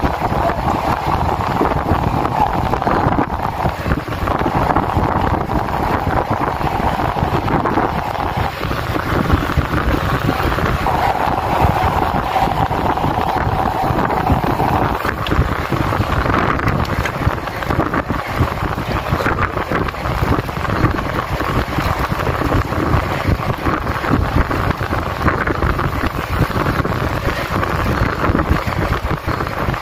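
Steady wind rushing over the microphone of a phone mounted on a road bicycle's handlebars as it rides fast on asphalt.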